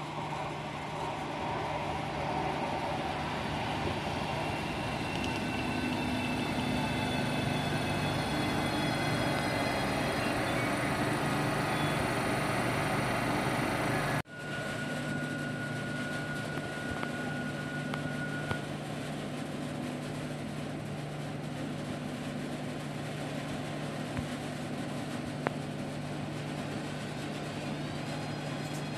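Renfe Civia electric commuter train running through the station: steady wheel and running noise with an electric motor whine gliding slowly in pitch. The sound breaks off suddenly about halfway through and picks up again on another close pass of a Civia unit.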